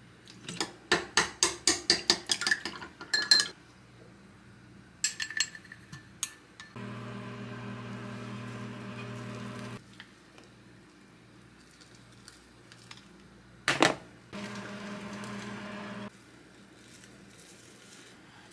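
Rapid clinking of a utensil against a dish or bowl, about four strikes a second for some three seconds, then a few ringing clinks. Later a steady hum runs for about three seconds, a sharp clink follows, and a second shorter hum runs.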